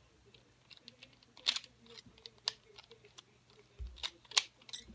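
Plastic pyraminx puzzle being turned quickly: irregular clicks and clacks of its pieces snapping round, with a few louder ones, the loudest cluster near the end.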